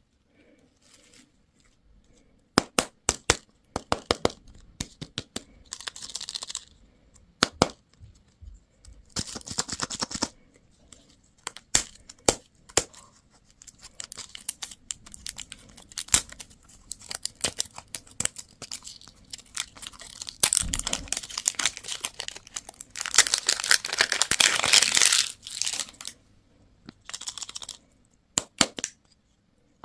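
Candy and toy packaging being torn open and crinkled by hand, among many sharp plastic clicks and taps. The longest and loudest tear comes near the end.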